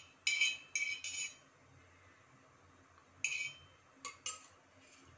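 Steel spoon scraping over an iron tawa as it spreads ghee: three short scrapes in the first second and a half, then three more short metallic scrapes and clinks from about three seconds in.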